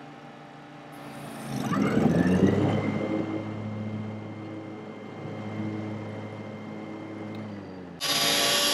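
Scag Turf Tiger mower's electric PTO blade clutch engaging under an Ogura soft-start controller. The deck spins up gradually, with a whine that rises and then holds steady over the engine's hum, kind of like a slipper clutch. Near the end it changes abruptly to a louder, steady rushing running noise.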